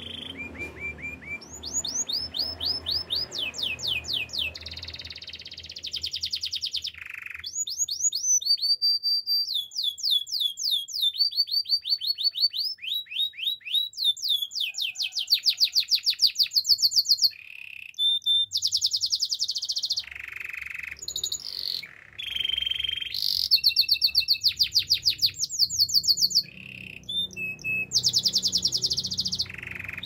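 Domestic canary singing a long song made of rapid trills: runs of quick repeated notes, some swept up or down, others fast steady rattles, each run giving way to a new one every second or two with brief pauses between phrases.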